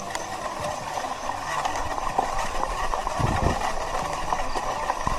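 Bicycle rolling over a rough, muddy gravel trail: steady tyre noise and rattling from the bike, with a few low knocks about three seconds in.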